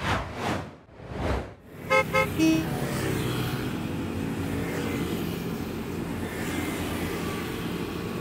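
Two whooshing swells, then a few short car horn toots about two seconds in, followed by steady city traffic noise.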